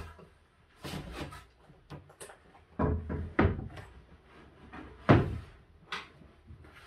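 Large plywood sheet knocking and thudding as it is lowered onto drawer cabinets and shoved into place as a desktop: several separate wooden knocks, the loudest a little after five seconds in.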